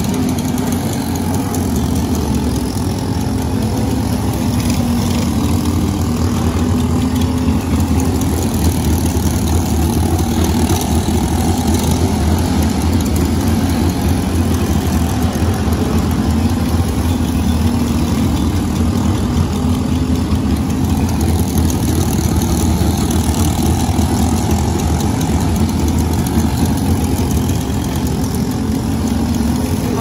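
An engine idling steadily, holding an even pitch with no revving.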